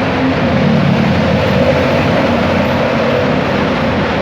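Steady, loud motor rumble with a low hum.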